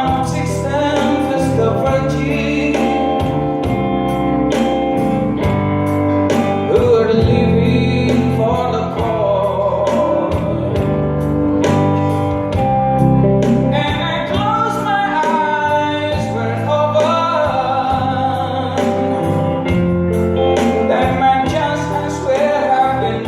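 A band playing a song with a singer, the voice carrying a wavering melody over sustained chords. Percussion strikes keep a steady beat throughout.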